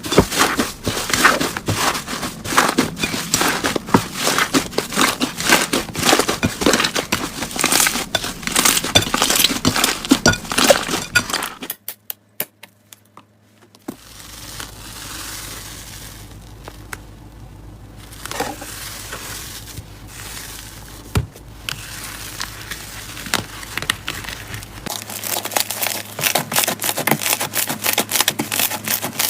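Slime being squeezed and pressed by hand, giving dense rapid crackling and popping. The crackling stops about a third of the way in, gives way to a quieter, softer stretch, and returns near the end.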